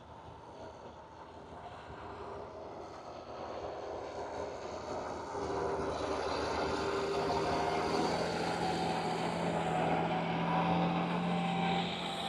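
Ford TW25 tractor's six-cylinder diesel engine running steadily. It grows louder over the first six seconds as the tractor draws nearer, then holds level.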